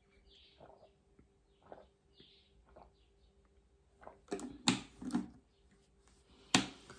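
Faint rustling and small handling sounds, then from about four seconds in a series of sharp knocks and clatters, the loudest a little before the end.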